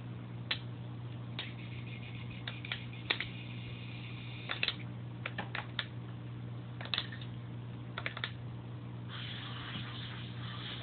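Irregular light plastic clicks, about fifteen short taps spread unevenly, from the controls of a handheld RC submarine transmitter being worked, over a steady low electrical hum. A soft hiss comes in near the end.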